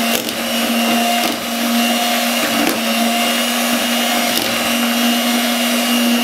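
Electric hand mixer running steadily at a constant pitch, its beaters whisking a runny mixture of cream, condensed milk and chocolate crumbs in a bowl.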